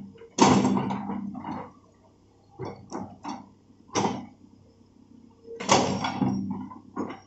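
Hitachi hydraulic excavator working loose soil: bursts of clanking and knocking from the bucket and arm, loudest about half a second in and again near six seconds, with a few short sharp knocks between them, over a faint low engine hum.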